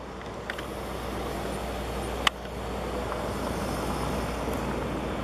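Steady low rumble of distant vehicles, with one sharp click about two seconds in.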